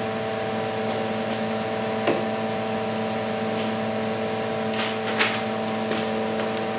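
Steady machine hum made of several constant tones, with a couple of light knocks and a paper template rustling as it is handled about five seconds in.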